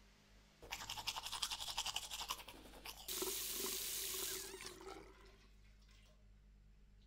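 Teeth being brushed with rapid scrubbing strokes for about two seconds, then a tap running into a sink for about two seconds.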